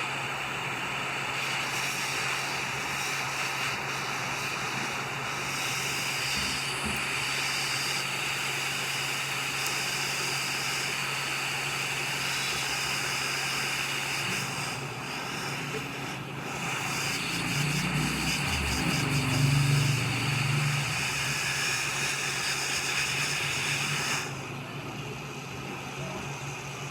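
Hot-air rework station blowing a steady hiss of hot air over a phone's circuit board while the charging jack is worked on, with a low hum under it. The air cuts off about 24 seconds in.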